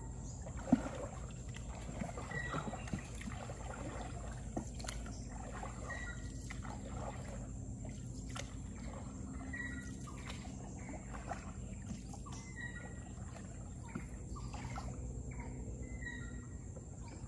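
Wooden paddle dipping and pulling through canal water from a small boat, with water trickling and dripping off the blade and small splashes and knocks. There is a sharp knock about a second in. A short high chirp repeats every three seconds or so.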